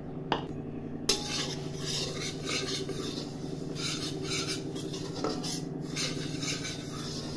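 Metal spatula scraping and stirring dry semolina around a metal kadhai as it is dry-roasted, in repeated strokes about two a second, with a sharp clink about a second in. A steady low hum runs underneath.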